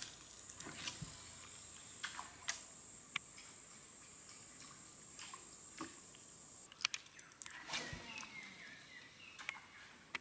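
Insects giving a steady, high-pitched drone that cuts off about two-thirds of the way through, with scattered light clicks and knocks.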